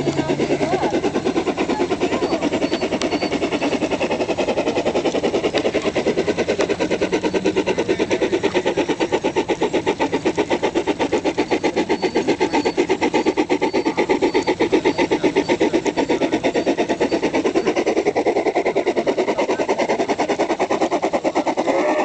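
G-gauge model steam locomotives running, with a rapid, even chuffing beat.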